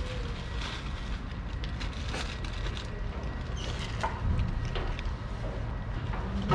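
Cat crunching dry kibble, with scattered short crisp crunches over a low steady background rumble.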